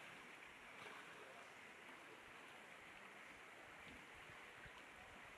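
Faint, steady rush of shallow river water stirred by wading elephant calves.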